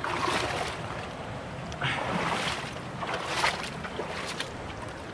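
River water sloshing and splashing around a person wading through it, in several surges a second or so apart.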